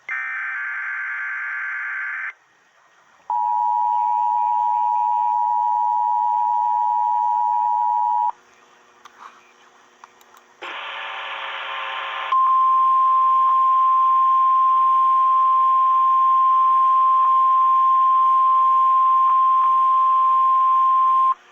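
Emergency broadcast alert tones. First the end of a burst of warbling digital data tones, then the two-tone attention signal for about five seconds. After a short gap comes another brief data burst, and then a single steady warning alarm tone held for about nine seconds. It is the NOAA Weather Radio 1050 Hz alarm, sounded here as a weekly test.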